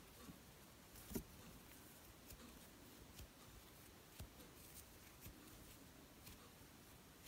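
Near silence with faint scattered soft clicks and rustles from a metal crochet hook and acrylic yarn being worked into a foundation chain, including one louder tap about a second in.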